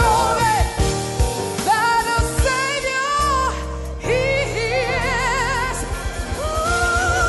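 Gospel vocal group singing in harmony with wide vibrato, backed by a live band of keyboards, electric guitar and drums. The drum beat drops out briefly midway, then returns under long held notes.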